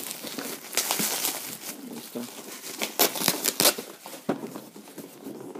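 Packaging being opened by hand: irregular crinkling and rustling of the wrapping, with many sharp crackles.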